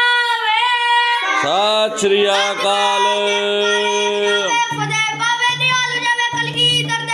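Children singing in long held notes, one voice after another: a high note first, then about a second in a lower voice holds a note for about three seconds, and from about five seconds a low voice sings shorter held notes.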